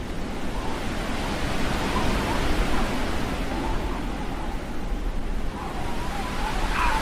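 Steady rushing noise, with faint wavering tones in the background that become more distinct near the end.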